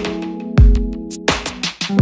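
Background music: sustained chords over a drum beat, with a heavy low drum hit about half a second in and another near the end.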